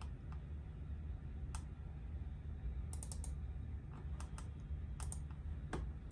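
Scattered light clicks, some in quick clusters of three or four, over a low steady rumble.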